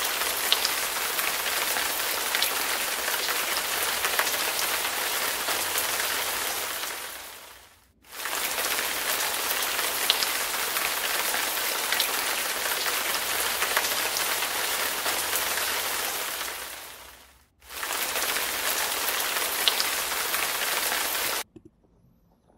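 Steady hiss of heavy rain, fading out and back in twice, then cutting off abruptly near the end.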